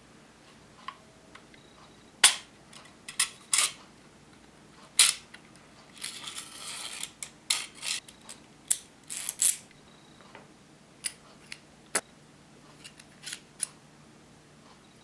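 Sharp plastic clicks and clacks of a 3D-printed Hino-Komuro model pistol being handled and its action worked by hand. There are a dozen or so irregular clicks, with a short sliding scrape about six seconds in.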